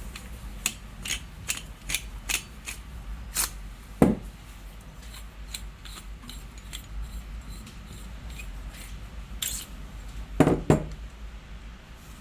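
Lightsaber hilt parts being handled and taken apart: a run of small clicks and taps, a louder knock about four seconds in and two knocks in quick succession near the end.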